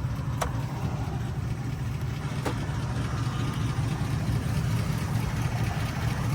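Vehicle engine idling steadily with a low hum, with a couple of faint clicks.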